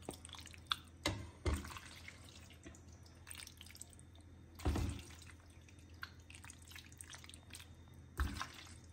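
Sauced penne pasta being scooped with a silicone spatula and dropped into a ceramic serving bowl: soft wet plops and light clicks, with a few louder dull thuds as spoonfuls land.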